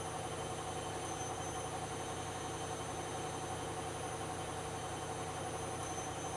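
Washing machine running steadily, its motor giving a constant whine with no change in speed.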